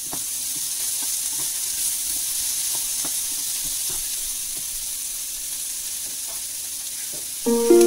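Sliced carrots, green beans and onion sizzling in olive oil in a frying pan, with light taps and scrapes of a wooden spoon stirring them. Music comes in right at the end.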